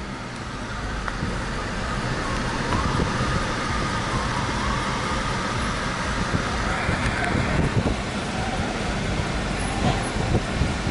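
Mitsubishi ASX driving slowly through city traffic, heard from inside the cabin: the engine and road noise build over the first couple of seconds as the car pulls away, then settle into a steady hum, with the sound of surrounding traffic.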